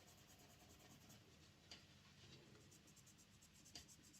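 Near silence: faint scratching as a model locomotive's wheels are rubbed clean, with two light clicks about two seconds apart.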